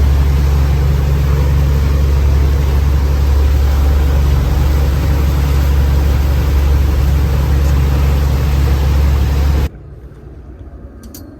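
Fishing boat's engine running steadily under way, a loud low drone with rushing wind and water noise over it. It cuts off abruptly near the end.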